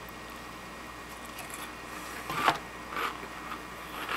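Spoon and cereal cup being handled over quiet room tone: one sharp knock a little past halfway, then a couple of fainter clicks near the end.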